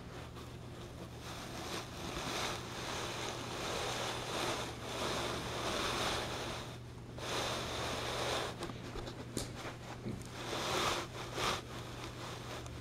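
Battery-powered toy Thomas the Tank Engine running along plastic toy track with two wagons in tow: a rattling running noise that swells as the train passes close and eases off, with a few sharp ticks near the end.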